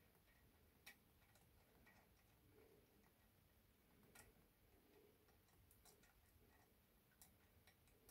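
Near silence, broken by a few faint, irregular metal clicks as a steel punch pin is handled and fitted into a swage press die.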